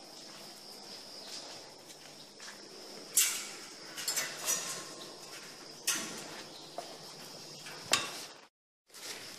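Metal grille gate clanking and rattling, with a few sharp metallic knocks spaced a second or two apart.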